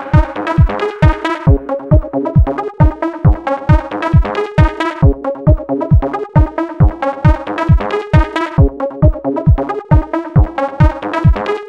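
Electronic dance music with a steady kick-drum beat and synthesizer notes.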